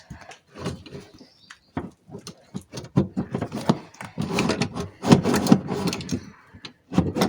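Metal scissor-type window regulator of a car's front door being worked out through the door's inner opening, clanking and scraping against the door shell in a run of sharp clicks and knocks. The handling noise is sparse at first and turns into a busy rattle and scrape from about three seconds in.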